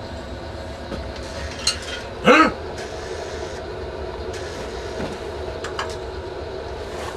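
Steady low drone of a boat's engine-room machinery running, with a few faint clicks. A short, loud voiced cry rises and falls a little over two seconds in.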